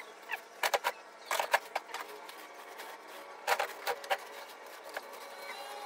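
Rummaging through folded T-shirts in a glass display cabinet: a few short bursts of clicks and rustling, about half a second in, around a second and a half, and again between three and a half and four seconds.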